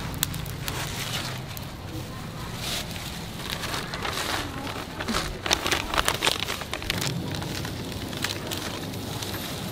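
Charcoal grill crackling while salt-crusted grilled fish is handled and wrapped in paper. About five seconds in there is a cluster of sharp paper crinkles and clicks, over a steady low hum.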